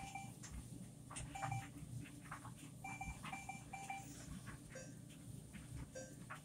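Washer control-panel keys beeping as buttons are pressed to step through the service menu: short electronic beeps, one at the start, one about a second and a half in, then three in quick succession around three seconds in, with faint button clicks.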